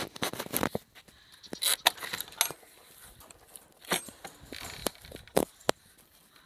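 A metal gate chain rattling and clinking against a wooden pole gate and its latch: a quick run of sharp metallic clinks at first, then scattered single clicks spaced out over several seconds.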